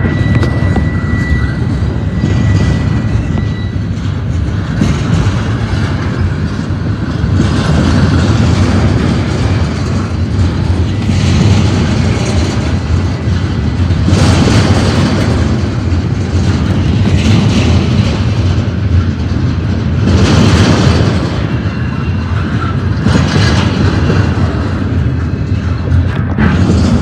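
Double-stack intermodal freight cars rolling past at close range: a steady low rumble of steel wheels on rail, swelling louder about every three seconds. A faint high steady whine sounds over it for the first few seconds.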